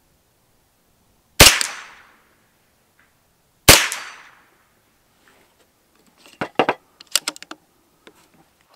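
Two shots from a CZ Scorpion EVO 3 S1 semi-automatic .22 LR rimfire carbine, about two seconds apart, each with a short echoing tail. A quick run of light clicks follows a few seconds later.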